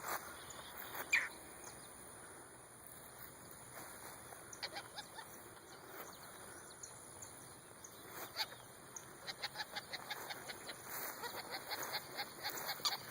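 Birds calling: a few separate sharp calls, the loudest about a second in, then a quick run of short calls over the last few seconds.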